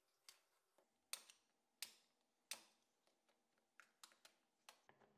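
Side cutters snipping excess plastic off a plastic-welded repair: sharp clicks about one every 0.7 s, the loudest a little past one and two seconds in. Near the end come quicker, lighter clicks as a utility knife blade shaves the plastic seam.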